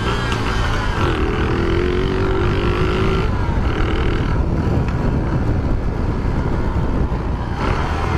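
Small 49cc Shineray motorcycle engine running while being ridden, its pitch rising a little about a second in. It is making a noise that the rider puts down to a slack drive chain knocking.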